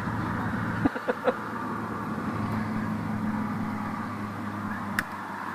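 A distant engine running steadily, a constant low hum that neither rises nor falls. A few light clicks come about a second in, and a single sharp click near the end.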